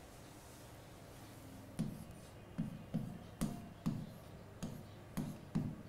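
Pen writing on a digital whiteboard: a run of short tapping, rubbing strokes, about two a second, beginning about two seconds in as a word is handwritten.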